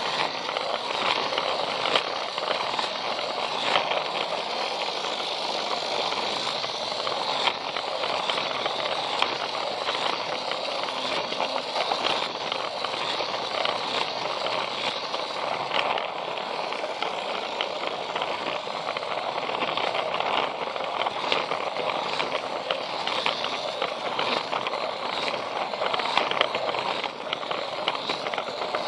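Battery-powered Plarail toy train running along plastic track: a steady rattle of the motor and plastic wheels, with frequent sharp clicks as the wheels pass over the track joints.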